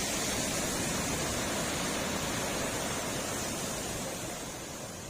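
Steady rush of wind and road noise on a microphone riding along on a motorcycle, easing off slightly near the end.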